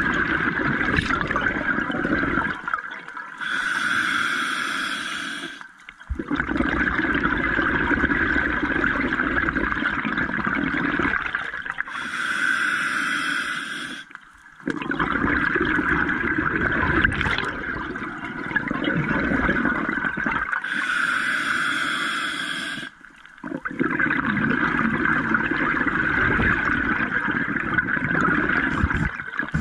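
Scuba diver breathing through an open-circuit regulator: a short hissing inhale about every eight to nine seconds, each followed by a long bubbling exhale, about three full breaths in all.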